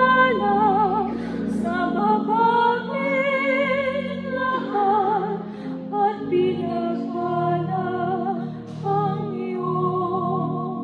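A small group of singers sings a slow hymn with vibrato, accompanied by sustained organ chords.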